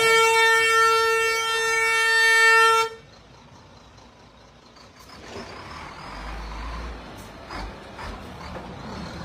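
A vehicle horn holding one long, steady note that cuts off suddenly about three seconds in. After it comes faint background noise.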